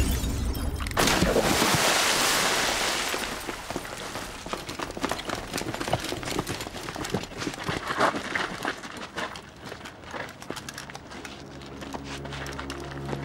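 Window glass shattering with a loud crash, a second crash about a second in, then many small clicks and tinkles of falling shards. Low, steady music tones come in near the end.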